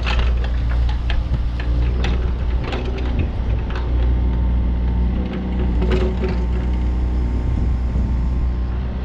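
Yanmar VIO50-U mini excavator's diesel engine running steadily under load while the boom, arm and bucket are worked, with scattered metallic knocks and clanks from the moving arm and bucket, a sharper one about six seconds in.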